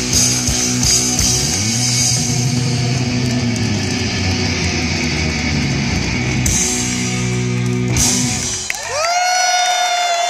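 Live rock band playing loud electric guitars, bass, keyboards and drum kit, recorded from the audience, then stopping short near the end. A long drawn-out shout and crowd cheering follow.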